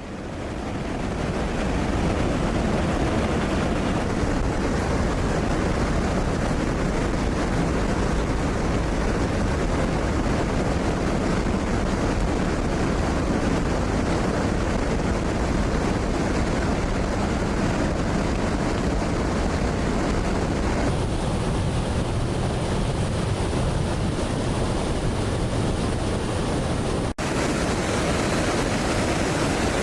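Steady roar of jet aircraft noise mixed with rushing wind, fading in over the first couple of seconds. The sound shifts abruptly about two-thirds of the way through and drops out for an instant near the end, where the footage is cut.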